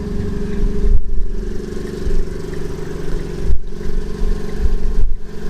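Fiat Grande Punto 1.4 16V's four-cylinder petrol engine idling with a steady hum and an uneven low rumble. The sound breaks off briefly about a second in, and again about three and a half and five seconds in.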